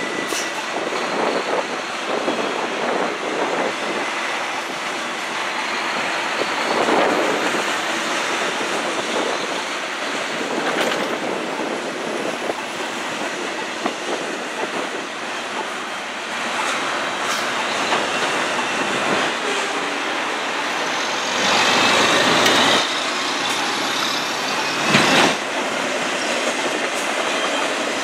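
Double-stack intermodal container train passing at speed: a steady rush of steel wheels on rail from the well cars, with scattered knocks and clatters, two louder ones about three-quarters of the way through.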